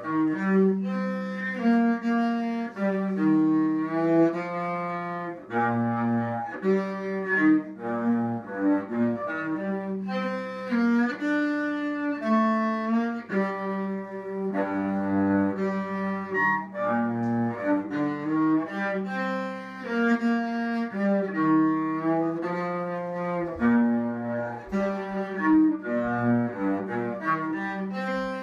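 Solo cello played with a bow: a continuous line of bowed notes, each held for about half a second to a second, changing pitch without a break.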